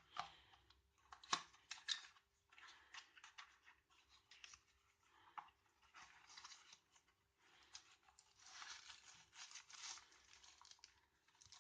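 Faint rustling and crinkling of packaging with scattered sharp clicks, as a small cable box is opened and the plastic-bagged cable inside is handled; the crinkling is densest near the end.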